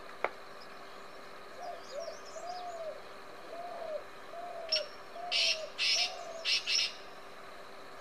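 Spotted dove cooing: a series of about six soft, evenly spaced low coos. Small birds twitter faintly high above, and a quick run of loud, sharp, high-pitched chirps comes between about five and seven seconds in.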